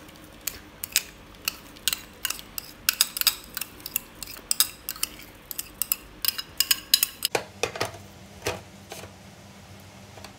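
Metal spoon clinking and scraping against a small glass bowl as a frothy yeast mixture is scooped out of it: a quick run of sharp taps. After about seven seconds come a few louder knocks over a faint low hum.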